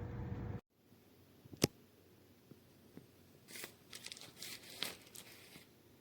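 A steady hum cuts off abruptly just over half a second in. Then comes a single sharp click, and later about two seconds of faint crinkling, rustling handling noise.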